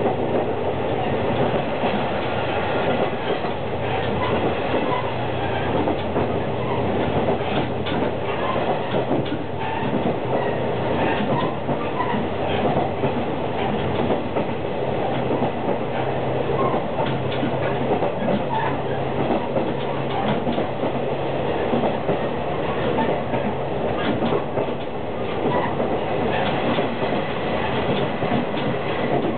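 KiHa 48 diesel railcar running along the line, heard from inside a middle car: a steady rumble of wheels on rail with scattered rail-joint clicks. A low diesel engine hum runs under it and drops away about three quarters through.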